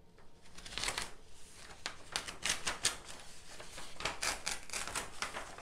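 A stack of newsprint sheets being torn off a pad's glued binding, a slow run of irregular paper crackles and rips as the sheets come away.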